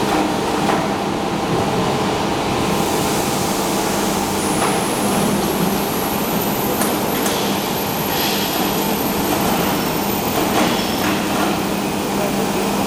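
Four-roll plate bending machine running, its rolls turning a steel plate into a curve: a steady mechanical hum with a few faint ticks.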